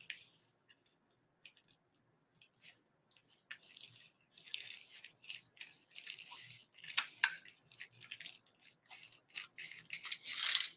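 Scissors snipping through folded black plastic sheeting in a run of short, crisp cuts, with the plastic crinkling as it is handled; the cutting starts a few seconds in.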